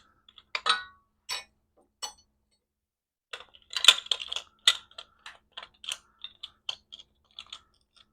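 Small metal parts and hand tools clinking and tapping against a motorcycle's engine and bracket: a few scattered clinks, a busy cluster about four seconds in, then a string of light, evenly spaced clicks, about three a second.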